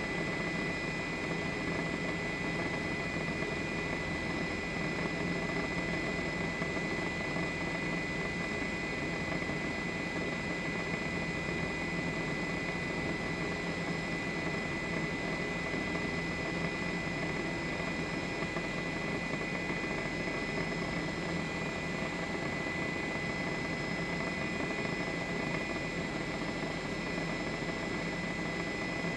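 Steady engine and rotor noise of a news helicopter, heard from on board, with a high steady whine over a dense low rumble.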